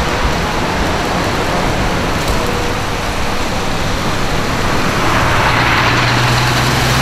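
Road traffic noise at a rain-wet city intersection, with tyre hiss and engines. From about five seconds in, a truck engine runs close by with a steady low hum.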